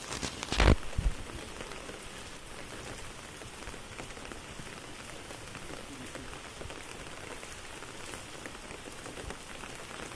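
Steady rain falling, with a brief cluster of loud knocks about a second in.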